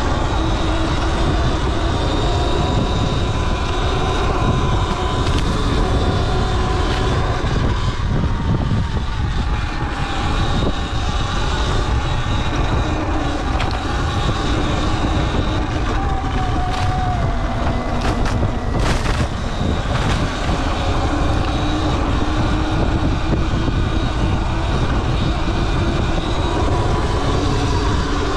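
Sur-Ron Light Bee electric dirt bike under way: its motor and drivetrain whine, rising and falling in pitch as the speed changes, over a heavy low rumble. A couple of sharp knocks come about two-thirds of the way through.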